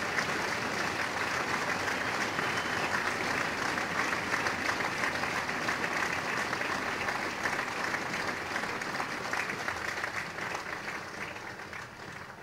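Crowd applauding steadily, the clapping dying away near the end.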